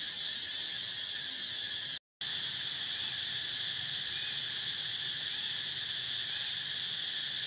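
Steady, unbroken drone of forest insects, a high shrill buzz with a lower second band. It drops out completely for a split second about two seconds in.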